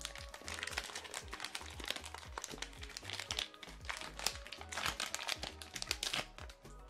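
Clear plastic bag crinkling and rustling in the hands as a cyan ink bottle is unwrapped from it, with irregular crackles throughout, over background music with a steady bass.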